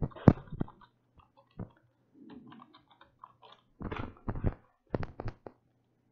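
Computer keyboard keystrokes typing a password, irregular and sharp, with louder clusters of clicks about four and five seconds in.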